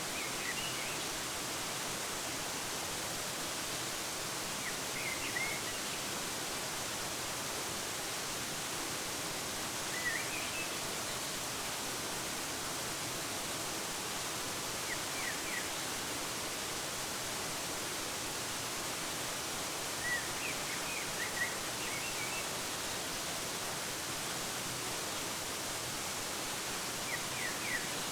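Steady rushing of a waterfall with brief, high bird chirps in small clusters about every five seconds.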